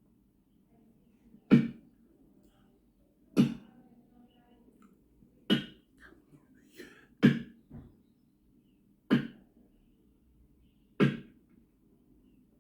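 A tree being chopped with an axe: six sharp blows, about one every two seconds.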